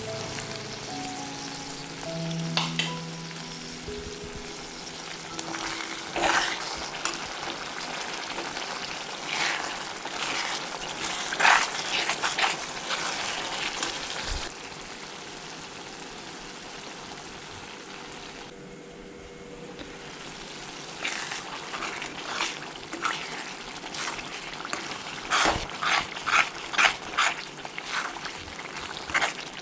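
Thick red sauce sizzling in oil in an iron kadai while a metal spoon stirs and scrapes against the pan in repeated strokes. The stirring stops for a while in the middle, leaving only the sizzle. Soft background music plays for the first few seconds.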